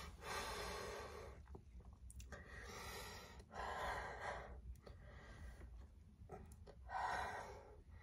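A woman breathing heavily in and out, in several slow, breathy swells a second or so long, winded from chugging a carbonated soda.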